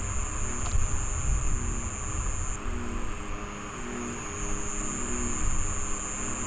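Wind rumbling on the microphone under a steady, high-pitched insect trill that runs without a break.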